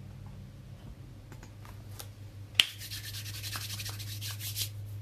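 A sharp click, then about two seconds of rubbing, like something being slid or rubbed across a surface, over a steady low hum.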